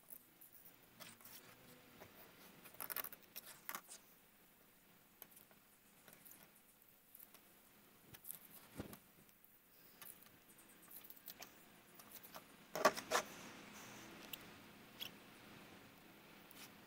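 Knife and pliers working on a lookdown (moonfish) being cleaned on a table: scattered soft scrapes and clicks of the blade cutting and the pliers gripping the skin, with one louder knock about thirteen seconds in.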